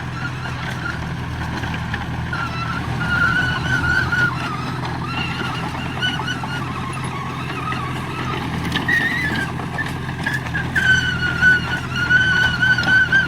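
Diesel engine of heavy earthmoving machinery running steadily, with a high wavering squeal that comes and goes over it.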